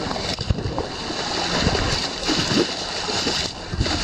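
Running footsteps squelching and splashing through mud and puddles, irregular thuds under a steady rushing noise from the jostled camera.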